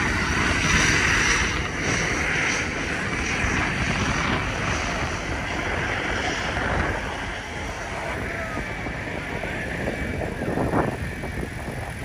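Aircraft engine drone, a steady rushing sound that is louder over the first six or seven seconds and then fades.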